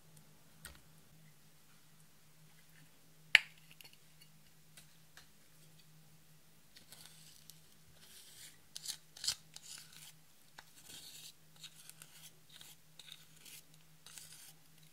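A wooden spatula scraping and crushing pressed glitter eyeshadow in its compact, a run of short scratchy strokes from about seven seconds on. A single sharp click comes earlier, about three seconds in, under a faint steady low hum.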